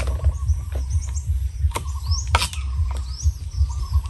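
Kitchen knife cutting green chillies on a round wooden chopping board: a few sharp knocks of the blade on the wood, the strongest about two and a half seconds in. Small birds chirp repeatedly in the background over a low rumble.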